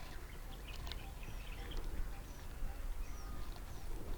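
Small birds chirping and calling in short, scattered high notes over a steady low rumble of wind on the microphone.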